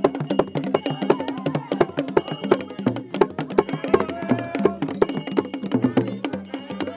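Traditional drumming on a small hand drum: quick, sharp hollow strikes, with voices singing along.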